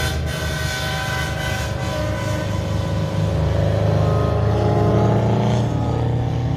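Semi-truck diesel engines running past one after another at road speed, loudest about four to five seconds in. A held air-horn note sounds at the start and fades out over the first two seconds.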